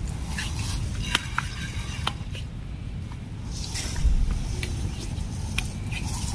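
Gas stove burner running with a steady low rumble under a pot of sauce, with a few light clicks scattered through.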